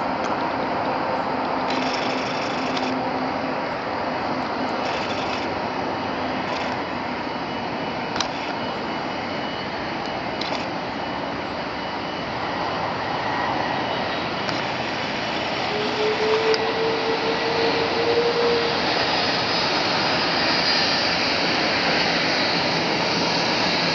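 Airbus A330-343 airliner's Rolls-Royce Trent 700 jet engines running as it rolls along the ground: a steady rushing jet noise that grows louder in the second half, with a faint rising tone partway through and a high whine near the end.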